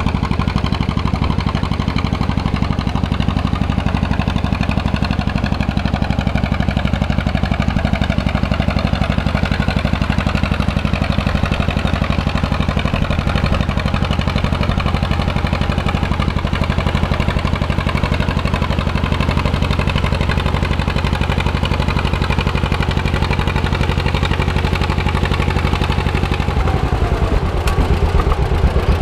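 John Deere A's two-cylinder engine working steadily under load as the tractor pulls a weight-transfer sled, a fast, even run of exhaust pops. Near the end it gets a little louder and the individual pops stand out more clearly.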